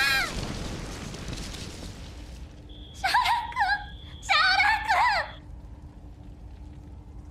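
A girl's high voice crying out a name twice in distress, "Syaoran-kun! Syaoran-kun!", about three and four seconds in. Before the calls, a low rumble fades away.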